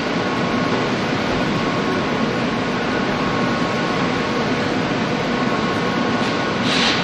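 Steady din of car-factory assembly-line machinery, with faint steady tones over it and a short hiss near the end.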